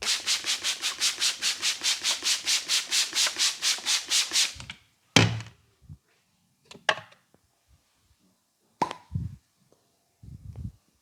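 Brisk rhythmic rubbing on the head during a barber's massage, about five strokes a second for some four and a half seconds. It is followed by a sharp knock and a few lighter taps and thuds.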